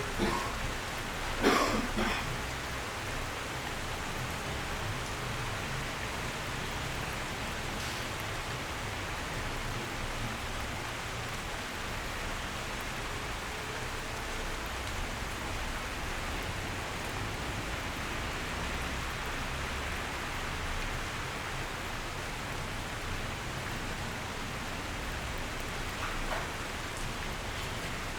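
Steady rain falling, an even hiss. A short, louder sound about a second and a half in, with a fainter one near the end.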